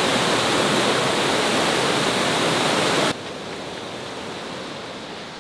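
Mountain stream rushing over boulders, a loud steady rush of water that cuts off suddenly about three seconds in, leaving a much fainter steady hiss.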